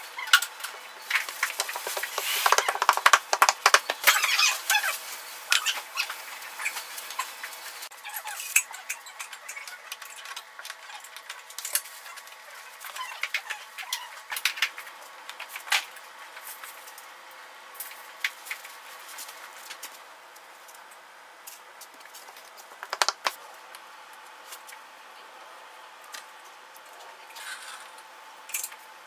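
Hexagon mosaic tile sheets being pressed and patted onto a backsplash by hand: small clicks and taps of tile against tile and hands on tile. They come thick and fast for the first few seconds, then scattered.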